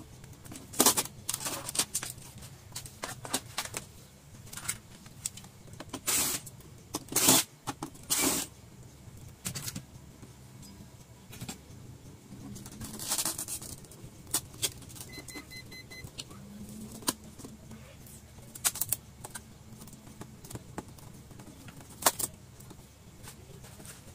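Clicks, knocks and scraping of plastic and metal parts as an LED TV is taken apart by hand: cable connectors unplugged and boards and casing handled, with louder scrapes about six to eight seconds in, over a steady low hum.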